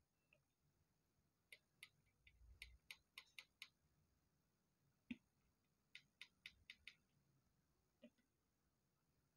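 Faint small plastic clicks and ticks from a flat ribbon cable and its connector being handled on a TV's T-con board: a quick run of clicks, a single one about five seconds in, then another short run.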